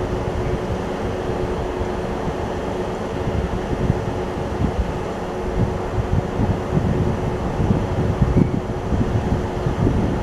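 WAP-4 electric locomotive approaching slowly with its train: a steady mechanical hum over a low rumble. Wind buffets the microphone throughout.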